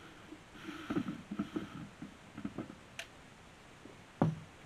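Erie 2400 series plastic valve body being unscrewed by hand from the neck of a water-softener vessel: short bursts of creaking and scraping as the threads turn, a few clicks, then one sharp knock near the end, the loudest sound.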